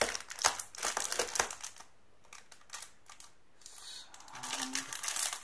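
Cardboard advent-calendar door being pressed and popped open by hand, a quick run of sharp clicks and crackles, then a small plastic bag of Lego pieces crinkling near the end.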